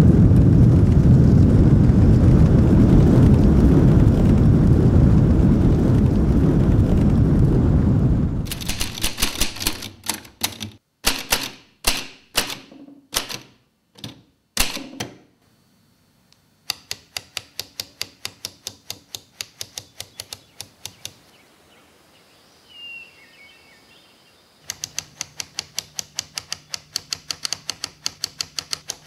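Racehorses galloping on turf: a loud, dense rumble of hooves for about eight seconds. Then a typebar typewriter types in quick runs of keystrokes, with short pauses between the runs.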